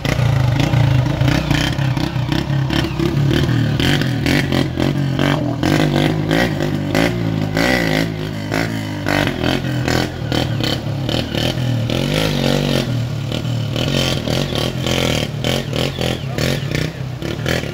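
Motorcycle engine revving hard and unevenly as it is ridden through flood water across the road, with irregular clattering throughout.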